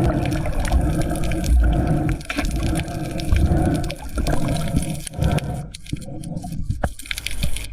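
Water sloshing and gurgling, loud and irregular with a low rumble, then quieter with a few sharp splashy clicks in the last couple of seconds.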